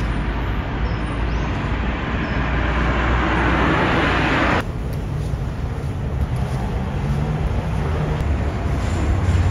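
Road traffic over a steady low hum. One vehicle's noise swells louder and then cuts off abruptly about halfway through, leaving a quieter traffic background.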